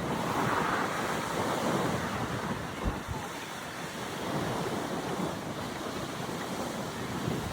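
Sea waves washing onto a beach, one swelling up about a second in, with strong wind buffeting the microphone in gusts.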